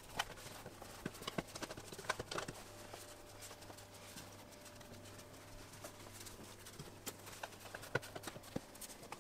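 Light, irregular taps and knocks of hands pressing and patting dough on a wooden table, clustered in the first couple of seconds and again near the end, over a faint steady low hum.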